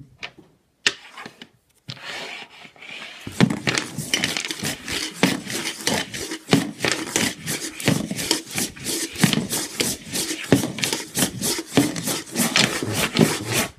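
Dice rattling inside a dice-stacking cup slid in quick circles across a hard tabletop. After a few separate clicks, a rapid, steady clatter starts about three seconds in and runs until it stops abruptly near the end, as the cup gathers the dice into a seven-dice stack.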